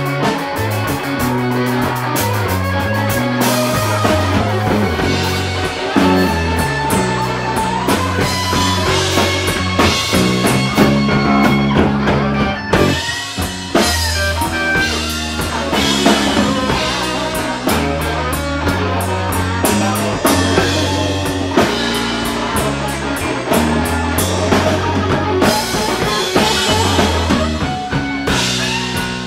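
Electric blues band playing an instrumental passage of a slow blues: an electric guitar plays a lead line with bent notes over bass guitar and a drum kit.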